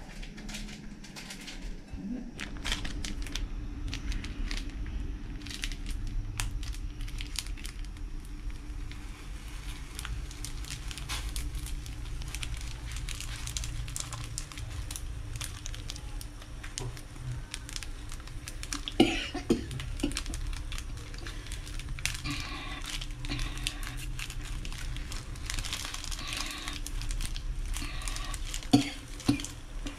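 Instant noodles boiling in a steel pot on a gas stove, a steady low rumble with many small pops, while a seasoning sachet's plastic crinkles as it is torn and squeezed into the pot. A few sharp knocks of metal sound about two-thirds in and near the end.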